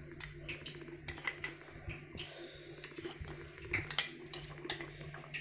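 Light, scattered taps and clinks of a spoon or container against a mixing bowl as flour is added to chopped vegetables, a few knocks a little louder than the rest.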